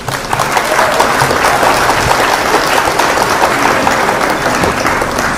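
A large audience applauding: dense, steady clapping that eases slightly near the end.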